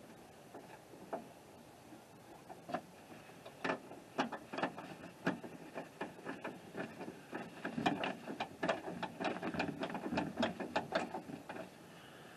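Irregular clicks and light knocks of hand work on a pickup truck door's inside handle and latch mechanism, a few at first, then a quick busy run of them for several seconds.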